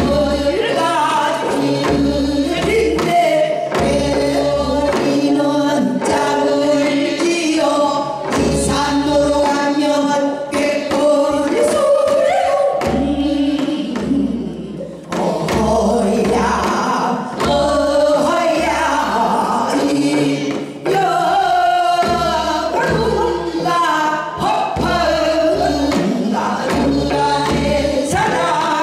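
Four women singing Korean traditional folk song together into microphones, with low drum beats underneath.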